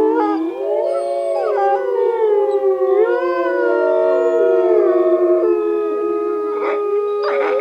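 A wolf pack chorus howling: several overlapping howls rising, holding and falling in pitch over one another.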